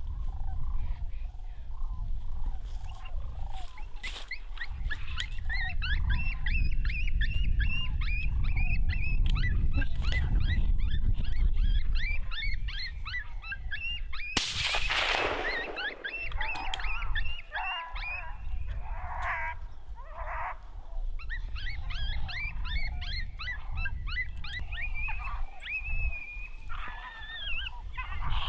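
Coyotes yipping and howling in a rapid chorus of high, wavering calls, with one loud hissing burst about halfway through. A steady low rumble of wind on the microphone runs underneath.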